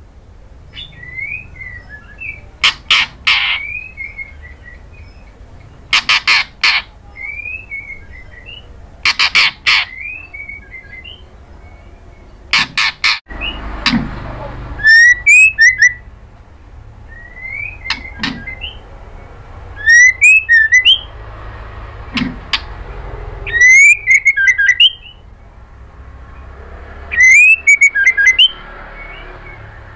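White-rumped shama calling: loud clusters of three or four harsh, rasping notes every few seconds, with short rising whistles between them.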